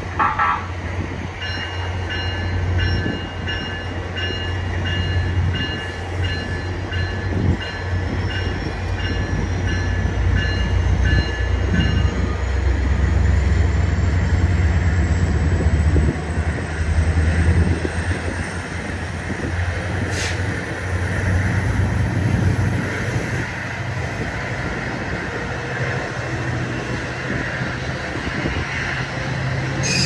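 MARC bilevel commuter coaches rolling past close by: a steady low rumble of steel wheels on the rails. For the first dozen seconds a bell-like ding repeats about one and a half times a second, and a faint high whine rises slowly through the middle.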